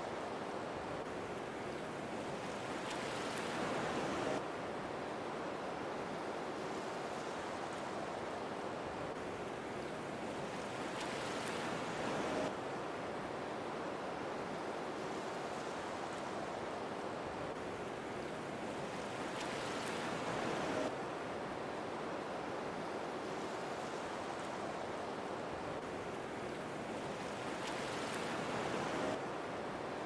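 Waterfall: a steady rush of falling water that swells four times, about every eight seconds, each swell building briefly and then dropping back suddenly.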